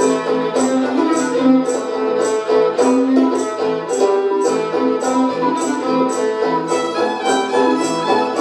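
Fiddle and banjo playing an old-time instrumental tune together: the fiddle carries the melody over the banjo's steady picked rhythm.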